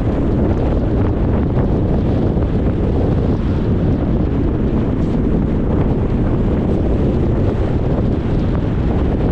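Steady road noise of a car driving, mostly low tyre and wind noise with wind buffeting the microphone, unchanging throughout.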